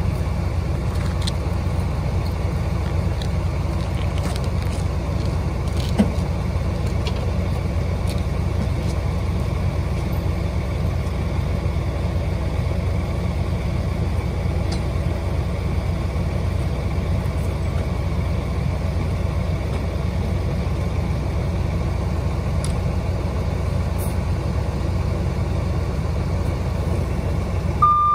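Heavy diesel trucks idling, a steady low hum that does not change, with one short sharp click about six seconds in.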